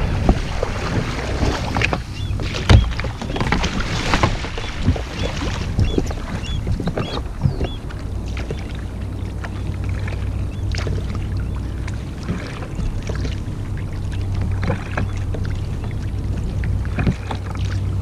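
Kayak being paddled across calm water: repeated paddle strokes splashing and dripping, with scattered knocks of the paddle or gear against the hull over a steady low rumble.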